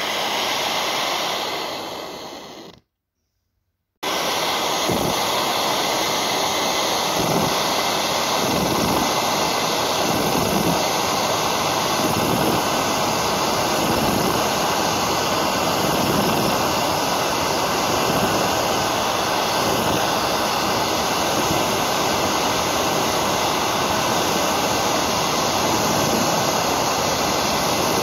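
Gas torch flame running with a steady rushing noise. The sound fades and cuts to silence between about two and four seconds in, then starts again abruptly and runs evenly to the end.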